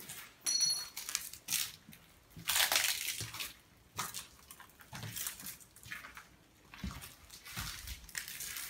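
Irregular crunching steps over debris and fallen plaster on a floor, with handling noise.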